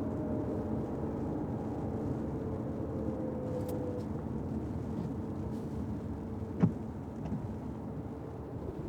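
Fiat 500X driving on wet city streets in the rain: steady road and tyre noise with a faint engine note that eases down in the first few seconds. A single sharp click comes about two-thirds of the way through.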